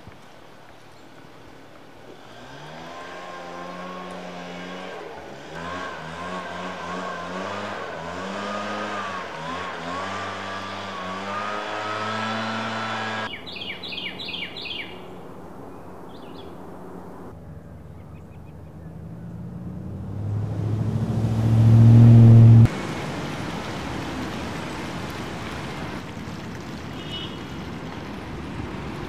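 A run of outdoor recordings joined by hard cuts. First an engine runs, its pitch stepping up and down repeatedly; about halfway a few bird chirps follow. Then a vehicle grows steadily louder until the sound cuts off sharply, and steady background noise follows.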